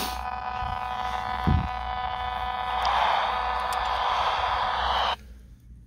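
Portable analog TV's speaker giving a steady buzz with hiss, the typical sound of a weak, distant UHF signal. There is a short low thump about a second and a half in, and the sound drops away sharply near the end.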